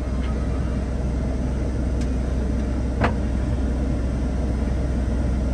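A New Holland combine's engine running with a steady, low drone. There is a sharp click about two seconds in and another about three seconds in.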